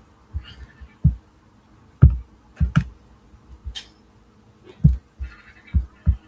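Irregular, separate clicks of a computer mouse and keyboard, about nine in all, a few of them sharp and loud, between stretches of quiet room tone.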